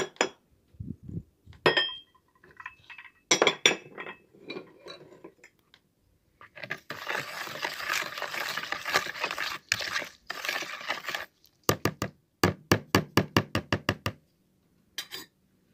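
Metal spoon stirring milk in a bowl: first scattered clinks against the bowl, then a few seconds of fast continuous stirring and scraping, then a quick run of regular taps near the end.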